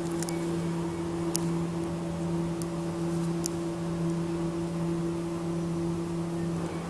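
KONE traction elevator car riding up, a steady two-toned hum with a few faint light ticks in the first few seconds.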